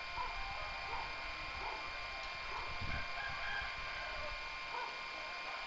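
Chickens and a rooster calling in short, scattered notes over a steady high whine.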